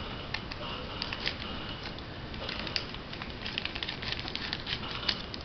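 Small items from a survival kit being handled: scattered light clicks and crinkling that grow busier about halfway through.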